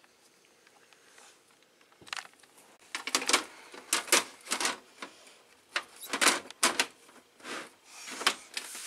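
Windowed side panel of a Corsair PC case being slid back onto the case: an irregular run of sharp clicks and knocks starting about two seconds in.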